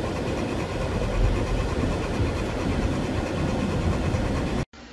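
Steady rumble of car engine and road noise heard from inside the cabin of a moving car. It cuts off abruptly near the end.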